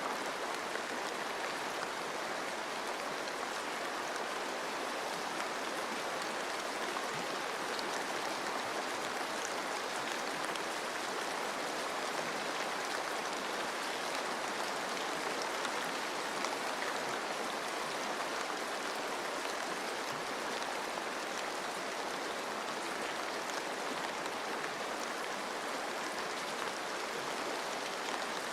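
Steady rain mixed with running stream water: an even, unbroken hiss with faint scattered drop ticks.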